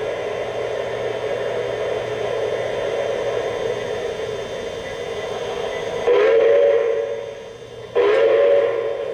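Sound effects from a model train's ProtoSounds speaker: a steady running sound, then two long train-whistle blasts of about a second each, near six and near eight seconds in.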